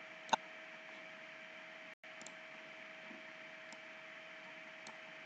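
Steady microphone hiss with a faint steady hum. A single sharp computer mouse click comes about a third of a second in, then a few faint clicks later.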